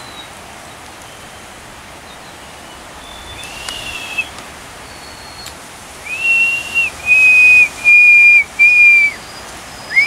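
Clear, level whistled notes: a fainter one with a slight rise, then a run of four loud notes of about a second each, one after another.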